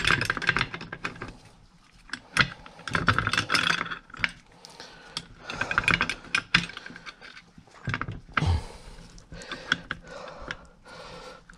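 Steel brake shoes, return springs and clips clicking and rattling against a VW Beetle's rear drum brake backing plate as they are fitted by hand, in several short bunches of irregular clicks.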